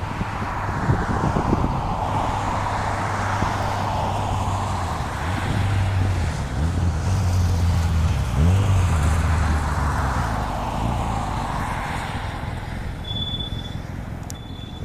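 Jet roar of a McDonnell Douglas MD-90's twin rear-mounted IAE V2500 turbofans at takeoff power as the airliner passes on its takeoff run. The roar swells, is loudest around the middle, and eases off toward the end, with a sweeping whoosh as it goes by.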